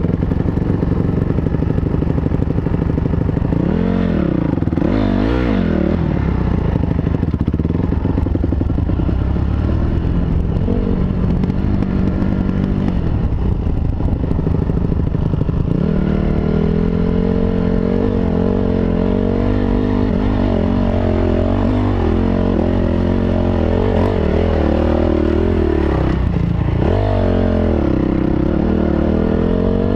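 Honda CRF250R dirt bike's single-cylinder four-stroke engine running close up: low and fairly even at first with two quick throttle blips about four to six seconds in, then from about halfway running at higher revs that rise and fall with the throttle.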